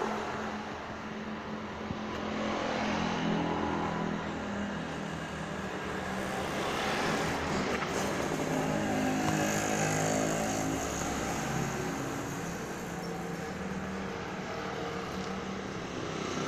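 Motor vehicle engines running, with the sound swelling and easing as vehicles pass.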